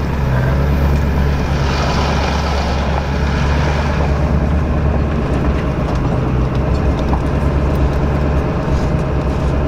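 Engine and road noise inside a moving pickup truck's cab: a steady low drone.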